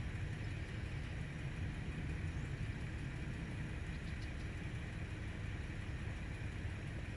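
Steady low outdoor background rumble, even in level throughout, with a few faint high ticks about four seconds in.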